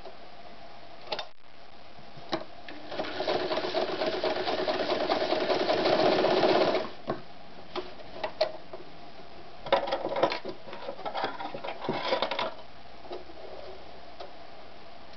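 Janome Gritzner 537 electric sewing machine test-stitching through a strip of leather-type material. After a couple of clicks it sews a steady run of about four seconds that gets louder toward its end. A few more clicks follow, then a second, choppier burst of stitching about ten seconds in.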